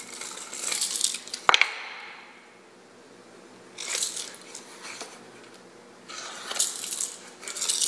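Hands brushing loose chips off a freshly bandsawn block of StarBoard plastic and setting it down between the jaws of a Kurt milling vise: scratchy rubbing and rustling in short spells, with one sharp click about a second and a half in.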